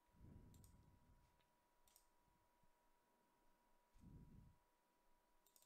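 Near silence with a few faint computer mouse clicks, and a sharper click near the end.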